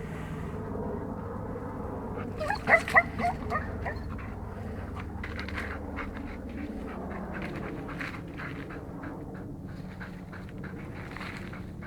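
A retriever whining and yelping, with a quick run of short high cries about two and a half to four seconds in; it is excited and frustrated, wanting to get up the tree.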